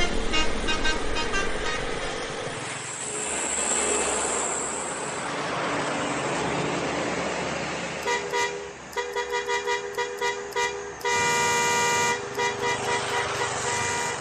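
Truck traffic passing on a road, then a truck horn sounding several notes at once, tooted in a quick run of short blasts. About eleven seconds in comes one long blast of about a second, followed by more short toots.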